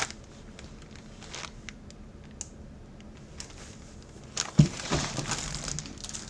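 Packaging crinkling and rustling as a packed jersey is handled, with a louder burst of handling noise and a sharp thump about four and a half seconds in.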